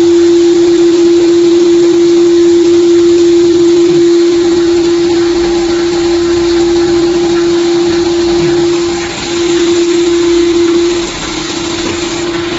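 Dishwasher tablet press machine running: a steady, loud motor hum with one constant tone over a noisy whir. The level dips briefly a little after nine seconds and drops slightly at about eleven seconds.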